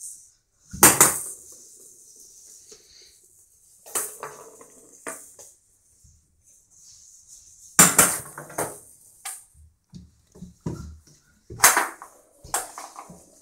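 Small cat-toy balls knocking and rattling on a hardwood floor as a crawling baby throws and bats them: a series of sharp knocks, loudest about a second in, near eight seconds and near twelve seconds.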